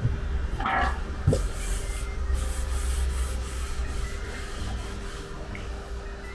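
Steady rubbing, sanding-like noise, with one short knock about a second in.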